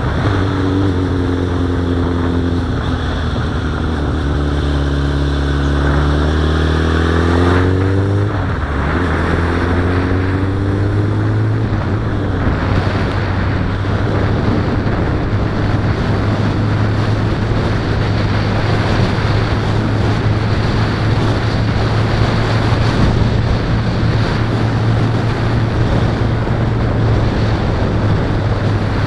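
Suzuki Bandit motorcycle's inline-four engine accelerating: its note rises, drops at an upshift about eight seconds in, then rises again. From about twelve seconds it holds a steady cruising note under wind rush on the microphone.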